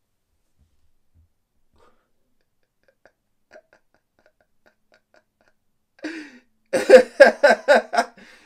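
Near silence, then about six seconds in a man laughs: a breathy start followed by a run of about five quick, loud ha-ha pulses.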